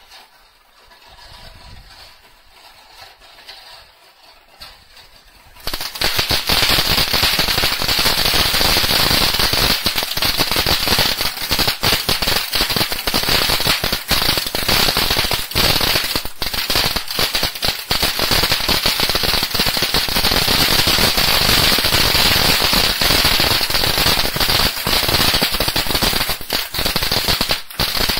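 Small ground firework fountain spraying sparks: a quiet hiss at first, then about six seconds in it suddenly breaks into loud, dense, rapid crackling that keeps going.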